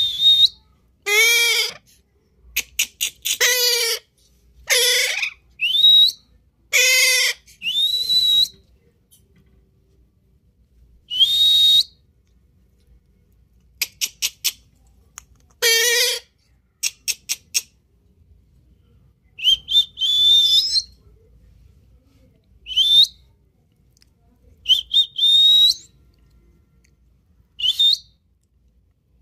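Repeated short whistles, each gliding up and then holding a high note, trading with a parrot's harsh squawking calls and quick runs of chirps, with pauses between.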